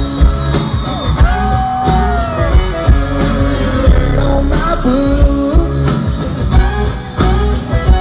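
Loud live country band playing an instrumental break between chorus and verse, with a steady drum beat, bass and a lead instrument playing sliding, bending notes.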